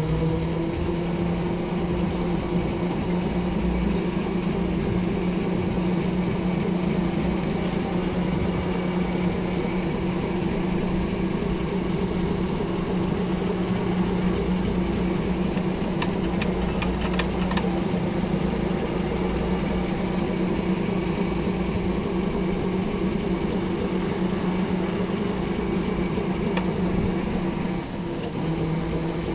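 Electric go-kart motor whining steadily at speed, heard on board the kart. A few faint clicks come about two-thirds of the way in, and the whine briefly dips in level and pitch near the end as the kart slows.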